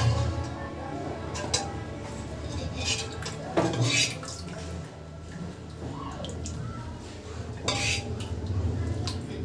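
A steel ladle scraping and knocking against the inside of an aluminium pressure cooker while scooping out sambar, with a few sharp clinks.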